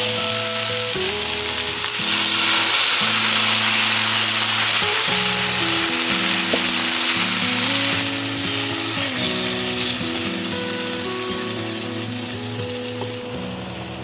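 Tomato, onion and bacon sauce sizzling in a frying pan on a gas burner as it is stirred with tongs, under background music with held notes. The sizzle grows louder about two seconds in and eases off in the second half.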